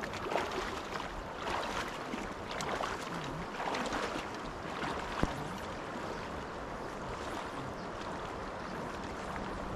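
Wading boots sloshing through shallow river water, about one splashing step a second, over the steady rush of the river; the steps fade out about halfway through, leaving only the flowing water.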